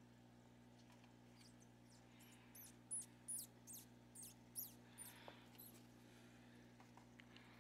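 Newborn (pinky) baby gerbil squeaking while held in tweezers: a run of about ten faint, very high, thin squeaks lasting roughly four seconds.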